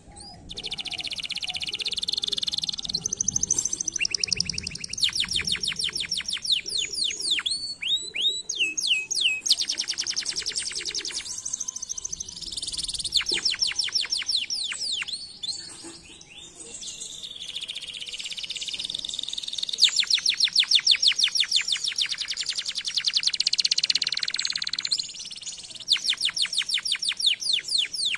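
Domestic canary singing: long phrases of fast trills and rolling runs of repeated high notes, with short pauses between phrases.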